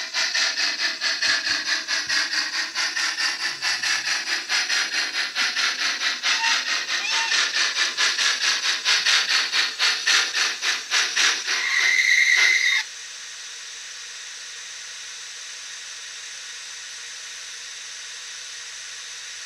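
Sound decoder of an H0 model CP 110/117 steam locomotive: rhythmic steam chuffing as it runs, with a short whistle of about a second near the end of the run. Then the chuffing cuts off suddenly and a steady, quieter steam hiss continues with the locomotive standing.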